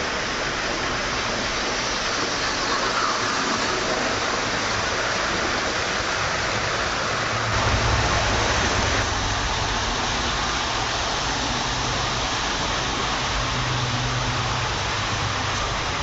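H0-scale model trains running on the layout: a steady rushing hiss of wheels and motors on the track, swelling with a louder low hum for a moment about eight seconds in.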